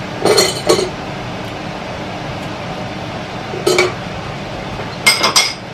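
A metal utensil clinks against a saucepan: twice near the start, once in the middle, and in a quick cluster of three or four near the end, as chopped onion is stirred into the boiling stock. A steady hiss runs underneath.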